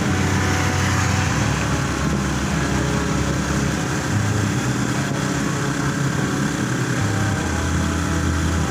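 Motor scooter engine running steadily while riding, its low drone shifting pitch slightly a few times.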